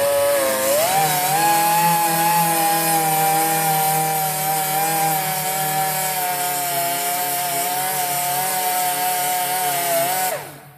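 Angle grinder with its disc mounted reversed, spinning up with a rising whine, then grinding a welded sheet-metal seam for about ten seconds. Near the end it is switched off and the whine drops away.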